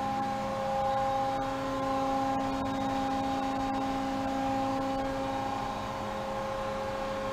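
Steady electric machine hum with several held tones, typical of the tube bender's 5 hp three-phase hydraulic power unit running at idle.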